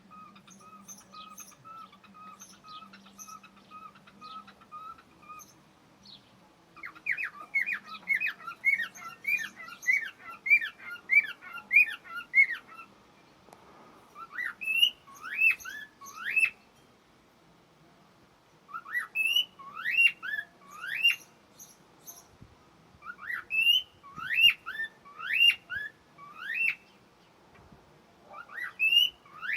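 Cockatiels calling: first a faint run of quick, even chirps, then loud bouts of short rising whistled calls, several a second, with short pauses between bouts.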